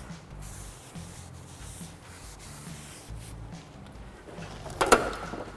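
A rag rubbing over the face of a new steel brake rotor, wiping off brake parts cleaner, a soft faint scrubbing. Near the end comes one sharp knock.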